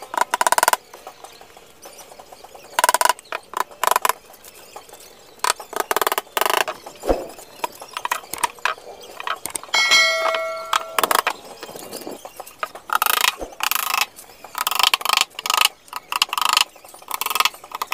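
Irregular knocks and scrapes from hand work on a plywood box, coming in short uneven bursts, with a short ringing tone about ten seconds in.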